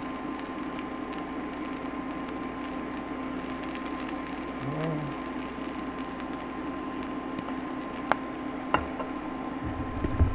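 A steady mechanical hum with a constant tone, with two light clicks about eight and nine seconds in and a few soft knocks near the end.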